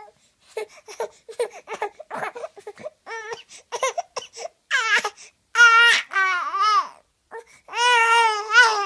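Five-month-old baby babbling in short bursts, then giving several long, wavering cry-like wails in the second half.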